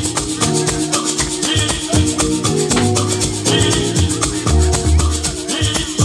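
Loud dance music with a fast rattling shaker beat over a bass line.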